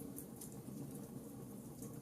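Campfire burning with a steady low hiss and a few sharp crackles and pops from the wood.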